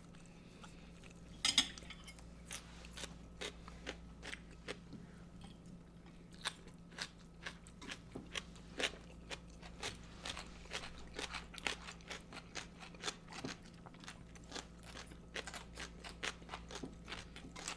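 Close-miked eating sounds: people chewing and crunching mouthfuls of a toasted-bun sloppy joe and coleslaw, in many short crunches a few a second. A louder crunch comes about a second and a half in.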